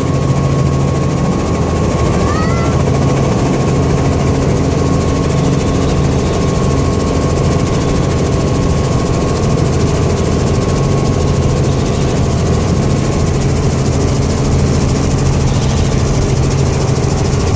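Small helicopter's engine and rotor running at takeoff power, a steady loud drone with a low hum, heard from inside the cabin as it lifts off and climbs. The low hum roughens a little over a second in as power comes up for the lift-off.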